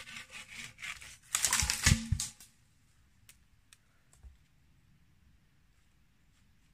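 A wooden pole scraping against the tree and twigs as it is handled, then a loud clatter of wood-on-wood knocks a little after a second in as it is set into place, followed by a few faint clicks.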